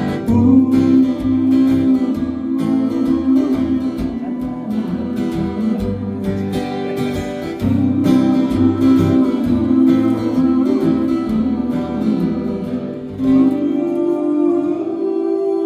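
Acoustic guitar strumming the outro of a song, with a wordless vocal line held over it. Near the end the low notes drop away.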